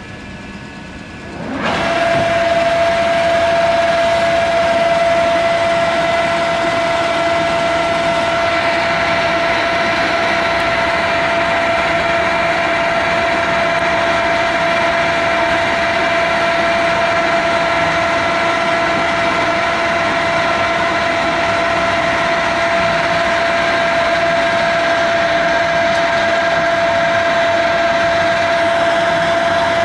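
American Pacemaker engine lathe's spindle engaging: about a second and a half in, the sound rises quickly and then settles into a steady, even machine whine and hum from the turning headstock gears and drive.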